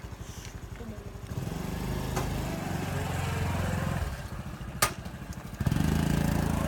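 Small motorcycle engine, the postman's delivery bike, running with a fast even pulse, revving up about a second in, easing off, then revving up again near the end. A single sharp click comes just before the second rise.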